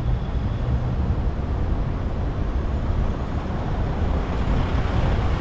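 Steady road and traffic noise of a car driving through city streets, with most of the sound in a low rumble.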